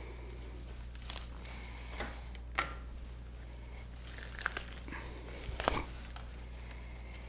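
Deer hide being pulled and peeled off the carcass by hand: a handful of short tearing and ripping sounds, the loudest toward the end, over a steady low hum.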